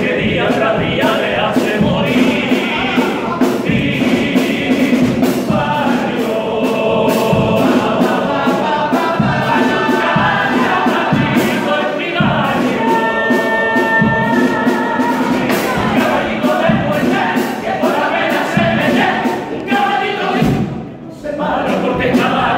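Carnival pasodoble sung in chorus by a group of men to a steady drum beat. The voices drop out briefly near the end.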